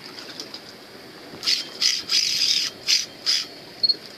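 Fishing reel's drag giving line in a series of short, high-pitched bursts as a large fish pulls against it. The drag is wound fully tight and the reel is nearly emptied of line. The bursts start about a second and a half in, about half a dozen of them.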